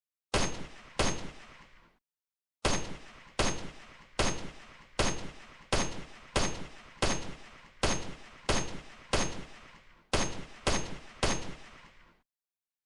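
AKM rifle firing single shots, about 15 in all: two shots, a short pause, then a steady string of shots a little under a second apart, each followed by a brief echoing tail.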